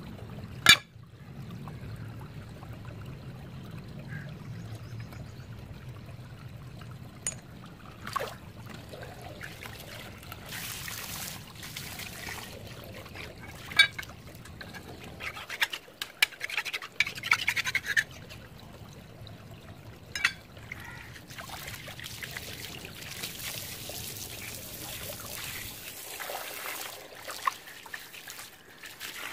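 Water running and trickling over a rusty steel mason's trowel, with a few sharp clicks as the trowel is handled, the loudest about a second in.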